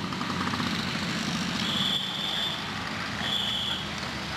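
Street traffic rumble with two high, steady electronic-sounding beeps, the first about a second long and the second shorter, a second or so later.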